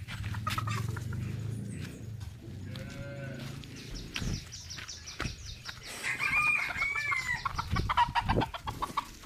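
An animal call with several rising and falling parts about six to seven and a half seconds in, after a shorter, lower call near three seconds in. A low rumble runs under the first four seconds.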